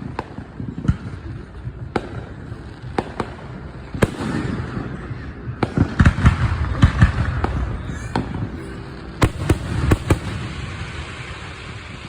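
Fireworks going off: a run of sharp bangs and crackles over a low rumble, thickest in a rapid cluster about four to seven seconds in, with a few more loud bangs near the nine-second mark.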